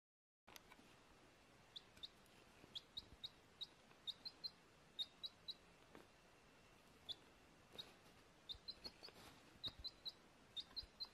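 A baby chick peeping: short, high chirps, often in quick runs of two to four, about two dozen in all over a faint hiss, starting about half a second in.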